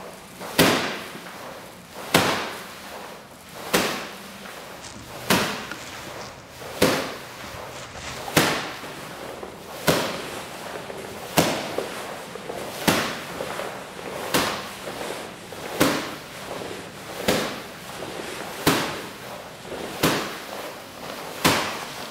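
Sharp knocks repeated very evenly about every one and a half seconds, each dying away quickly.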